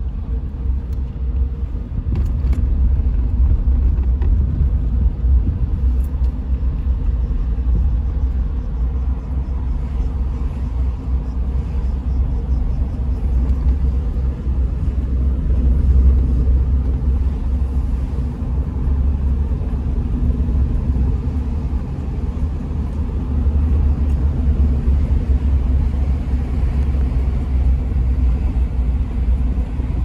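Steady low rumble of a car driving along, heard from inside the cabin: engine and tyre noise.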